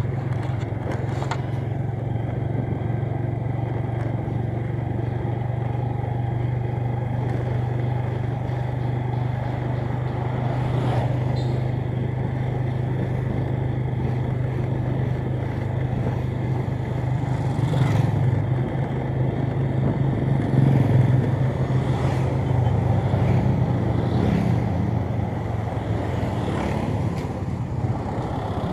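A road vehicle's engine running steadily while travelling along a street, with road and tyre noise. The engine hum grows louder and wavers in the second half, and a few brief clatters sound on the way.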